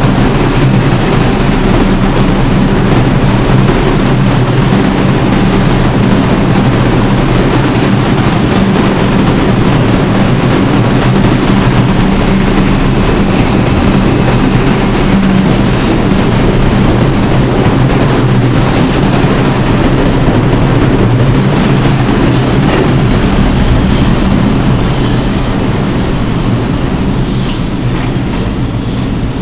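R142 subway train on the 2 line running past the platform: a loud, steady rumble of wheels on rail with a low motor hum. It fades over the last few seconds as the train clears the station.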